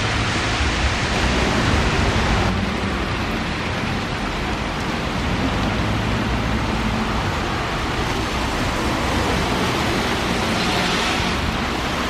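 Steady rain falling on wet pavement, mixed with traffic going by on the wet road: tyre hiss over a low engine rumble. The hiss swells briefly near the end as a car passes.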